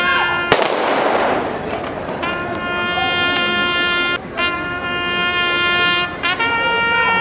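A rifle volley fired in salute by an honour guard: one sharp crack about half a second in that echoes away. Brass instruments hold long sustained notes around it, moving to a higher note near the end.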